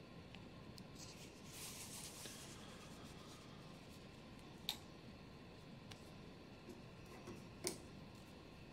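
Quiet handling of nylon fabric while pins are put in: a soft rustle about two seconds in, and two small sharp clicks, one near the middle and one near the end.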